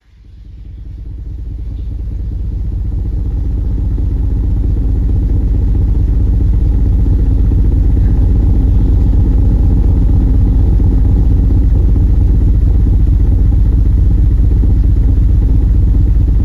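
Loud, low, rumbling noise drone with a gritty, crackling texture. It fades in over the first few seconds, then holds steady.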